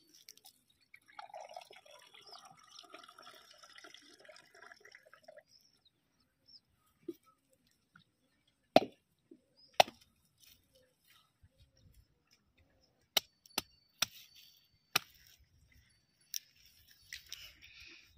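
A coconut being cracked open with sharp knocks against a hard surface, about seven strikes spread through the second half.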